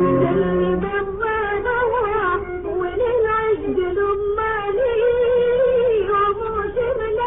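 Background music: held instrumental notes give way about a second in to a woman singing an ornamented, wavering melody.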